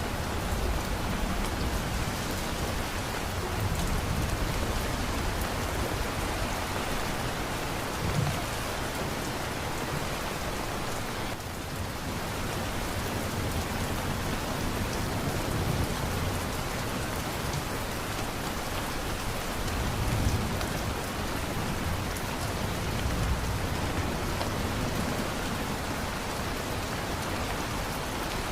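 Steady heavy rain pattering on surfaces, with low rumbles of thunder swelling up every few seconds.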